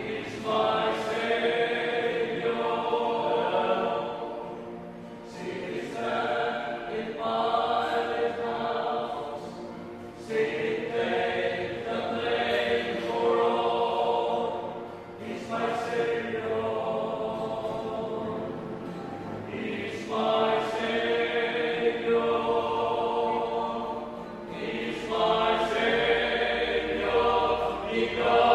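Male vocal quartet singing together into a microphone, in long phrases with short breaks for breath every few seconds.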